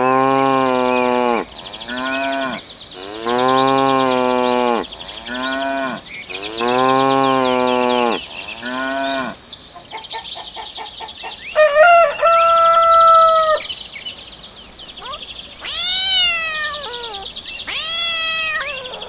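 Farm animal calls: a cow mooing, a long moo then a short one, three times over in the same way, then a rooster crowing and two more animal calls, over a steady high chirping of birds.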